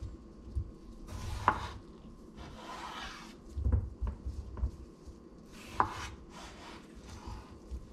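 Chef's knife slicing peeled raw potatoes and knocking on a wooden cutting board, with two sharp knocks, about a second and a half in and again some four seconds later.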